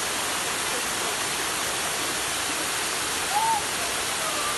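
Waterfall pouring into a pool, a steady rushing. About three and a half seconds in, a short call rises and falls over it.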